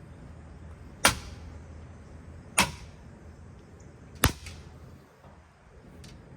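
A ceiling fan being struck in the course of being smashed: three sharp hits about a second and a half apart, then a fainter one near the end.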